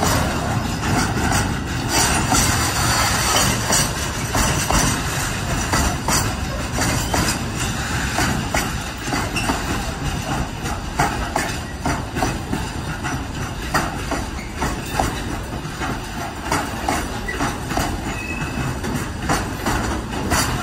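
Freight train wagons rolling past: a steady rumble of steel wheels on rail, broken by repeated sharp clicks as the wheelsets cross rail joints.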